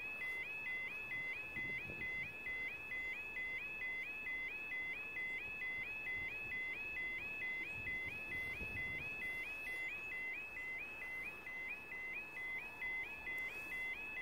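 Level crossing audible warning alarm sounding while the barriers are down: an electronic tone that sweeps up and holds, repeating steadily about three times a second.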